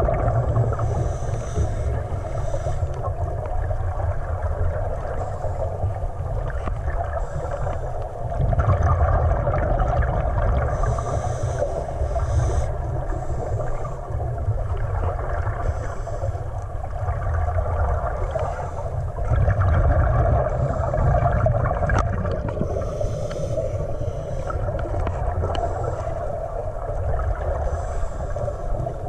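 Scuba diving heard from underwater: a steady low muffled rumble, with a diver's regulator breaths and exhaled bubbles coming in louder bursts every few seconds.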